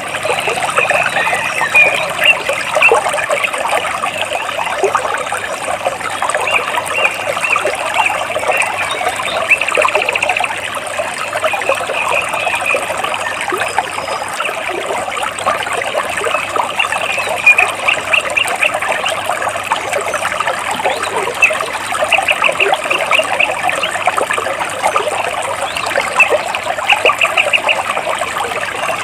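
Stream water trickling and burbling over rocks, a steady splashing. Every few seconds a bird sings a short series of quick high chirps above it.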